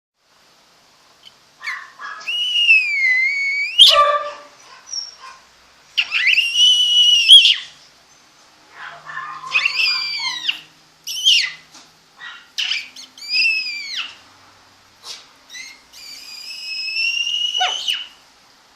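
Chihuahua puppies whining: a string of high, drawn-out cries, several lasting more than a second, each bending up and down in pitch, with short breaks between them.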